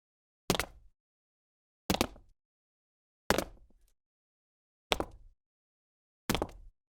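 Five separate footsteps from a woman's shoes, each a sharp tap on a hard surface with a short decay, evenly spaced about a second and a half apart, with silence between.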